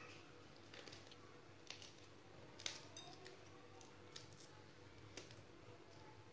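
Faint, irregular clicks of a small kitchen knife cutting a red chilli held between the fingers.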